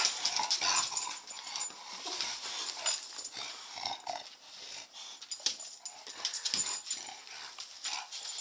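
English Bulldogs moving about on a hardwood floor: many light claw clicks, with a few short dog vocal sounds around two and four seconds in.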